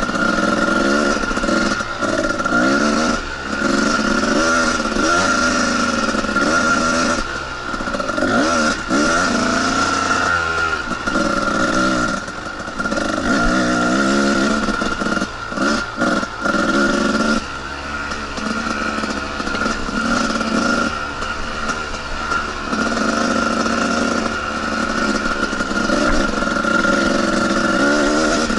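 Two-stroke dirt bike engine ridden on a trail, its pitch rising and falling with the throttle, with short drops in the engine note where the throttle is closed.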